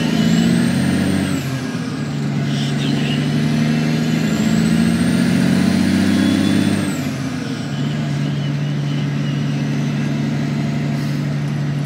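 Semi truck's diesel engine heard from inside the cab, pulling up through the gears of a manual transmission. The engine note dips at a shift about a second and a half in, climbs through the next gear with a high whistle rising and falling above it, drops at another shift about seven seconds in, then runs steadily.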